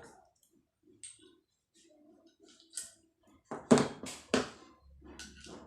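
Clicks and knocks of small airgun parts being handled on a work surface, with a few sharp loud knocks about four seconds in; a low steady hum starts near the end.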